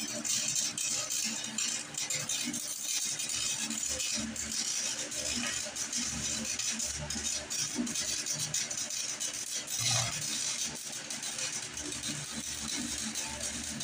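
Electric arc welding on the steel of a garden tractor: the welding arc crackles steadily, a dense run of fine sputtering crackles, with one louder pop about ten seconds in.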